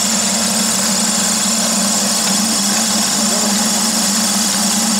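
Floating fish feed extruder running steadily while it turns out pellets: a constant machine hum under a loud, even hiss.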